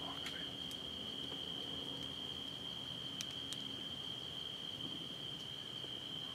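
Crickets keeping up a steady, unbroken high-pitched night chorus, with two faint clicks a little after three seconds in.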